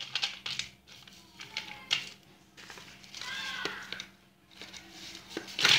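Dry Fuller's earth clay pieces being handled and broken by hand on a steel plate: scattered light clicks and soft crumbling, with a louder short scrape near the end. The clay breaks without much crunch.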